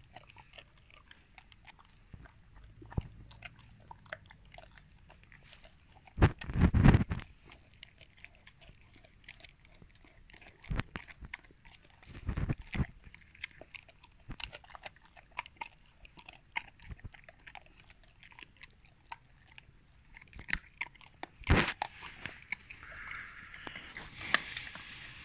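Rottweiler crunching and chewing a lamb bone, with sharp cracks of bone now and then: the loudest about six seconds in, again about twelve and twenty-one seconds in.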